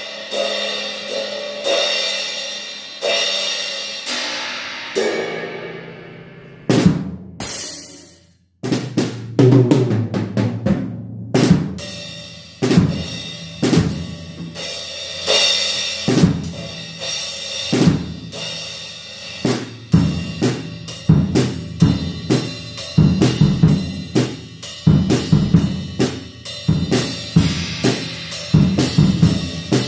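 Acoustic drum kit played with sticks. Over the first few seconds, cymbal and drum strikes ring out and fade. After a brief pause about eight seconds in, a steady beat starts on bass drum, snare and cymbals.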